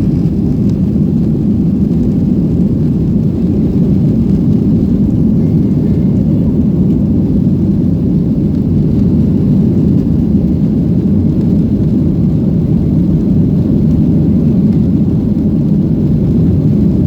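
Steady, loud low rumble of jet engines and airflow heard inside an airliner cabin during takeoff and climb-out, unchanging throughout.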